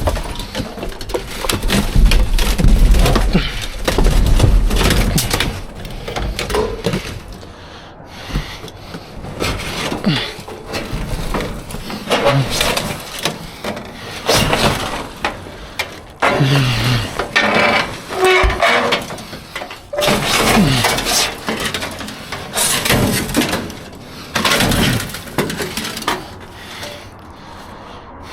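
Scrap metal and debris in a dumpster clanking, banging and scraping as pieces are shifted and pulled out, in a long run of irregular knocks and clatters.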